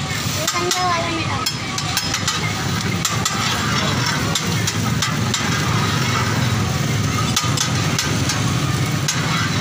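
Metal spatula clicking and scraping on a steel griddle while burger buns are pressed and toasted on it, with a sharp click every second or two. Under it runs a steady low hum of street noise with background voices.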